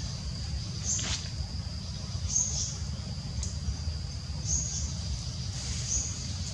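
Forest ambience: short high chirps repeat about every second and a half over a steady high whine and a low rumble.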